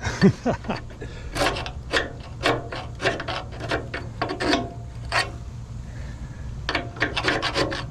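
Repeated hand strokes scraping and rubbing old paint off the metal of a 1941 Axelson engine lathe, short irregular rasping strokes with a pause of about a second around the middle, over a low steady hum.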